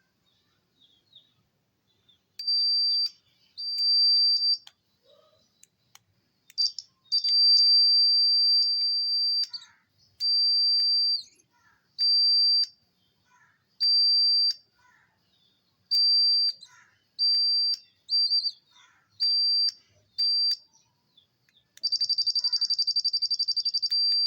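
A homemade laser security alarm's buzzer sounds a high-pitched steady beep in about a dozen bursts of uneven length, from a fraction of a second to over two seconds, switching on as the laser beam is broken and off as it is restored. Near the end it changes to a fast pulsing tone for a couple of seconds.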